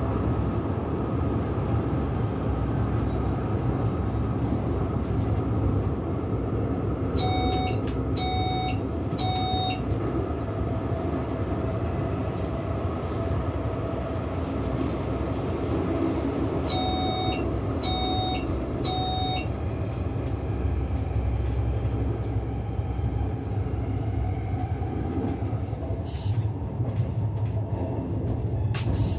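Double-deck S-Bahn push-pull train (Re 450 locomotive with control car) running through a tunnel, heard from the driver's cab: a steady low rumble of wheels and running gear. Twice, about 7 and 17 seconds in, the cab gives three short beeps. Near the end a few sharp clacks come as the train runs onto the points.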